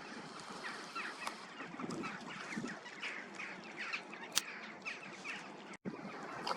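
A flock of ducks calling on the water: many short, high, falling calls overlapping one another, with a single sharp click about four seconds in.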